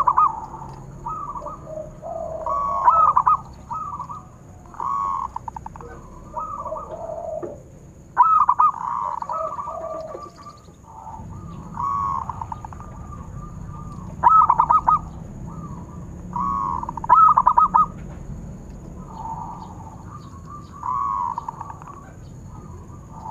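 Zebra dove (perkutut) cooing: short phrases of rapid, stuttering coo notes repeated every second or two, with lower-pitched coos mixed in during the first half.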